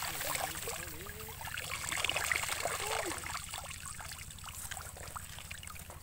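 Rice stalks rustling and crackling as they are cut and gathered by hand, busiest over the first half and then easing off.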